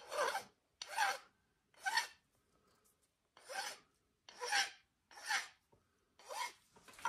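Hand file rasping across the end of a curly walnut screwdriver handle in seven short separate strokes, about a second apart, with a brief pause in the middle.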